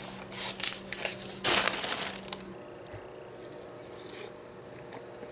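Plastic takeaway food packaging crinkling and crackling as it is handled and opened, loudest between about one and a half and two and a half seconds in, then fading to faint handling noise.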